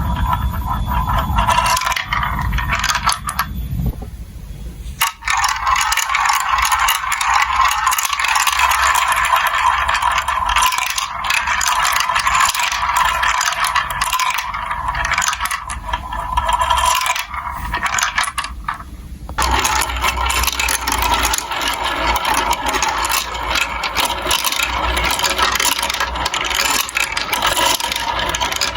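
Marbles rolling and clattering through a plastic building-block marble run track, a dense and continuous rattle of small clicks.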